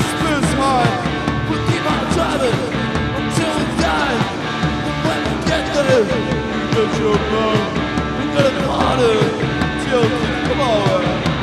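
Live rock band playing loudly, with many short notes sliding downward in pitch over a dense, driving band sound.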